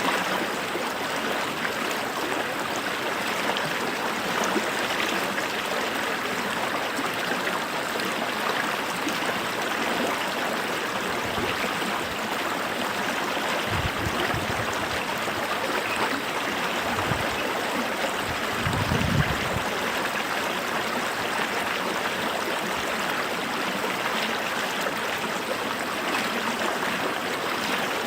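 A creek running, a steady babble of flowing water, with a couple of brief low rumbles partway through.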